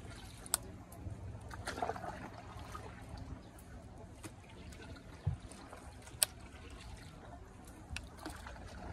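Water trickling and lapping against the hull of a small wooden gondola boat as it moves through the water, over a steady low rumble. There are a few sharp clicks, and one low knock a little past five seconds in.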